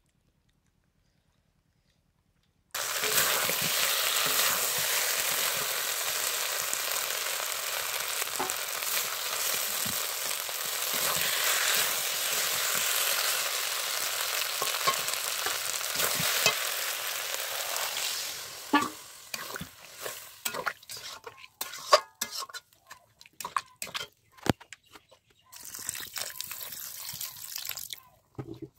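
Water poured into a hot kadai of browned, spiced meat: a loud hissing sizzle starts suddenly about three seconds in and holds for some fifteen seconds, then dies down into scattered crackles and clicks.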